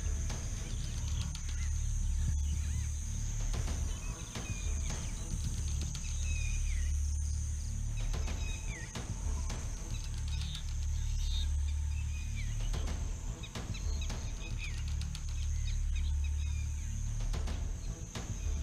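Outdoor field ambience: a steady high-pitched insect buzz and a few bird chirps, over slow-swelling low bass background music.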